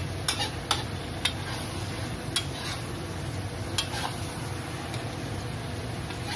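Metal spatula stirring prawns, red chilli and onion in a wok, with a handful of sharp clacks against the pan in the first four seconds, over a steady sizzle of frying.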